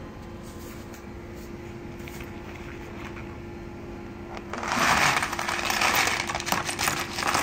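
A low steady hum. About four and a half seconds in, a pile of small rusty steel screws, nuts and linkage rods from a Traxxas Slash 2WD RC car is tipped out of a clear plastic box and clatters and jingles into a plastic tub of white vinegar. The clatter runs on to the end.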